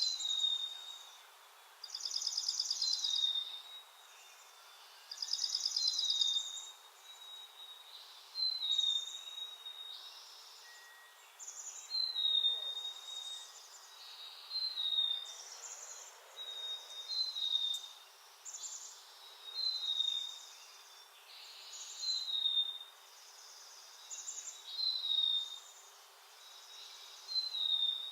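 Small songbirds singing over and over: a high, buzzy trilled phrase about every two to three seconds, with short high down-slurred notes between, over a faint steady hiss.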